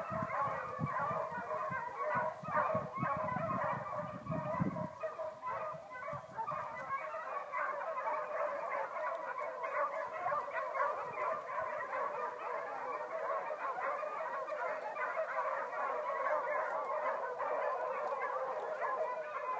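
Many dogs barking and yapping at once in the distance, a continuous overlapping chorus of short calls that never lets up, with a low rumble underneath for the first five seconds or so.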